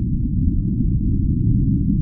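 A steady, deep, rumbling noise with no hiss or high end, a muffled relaxation noise track of the kind sold as white noise, closer to brown noise.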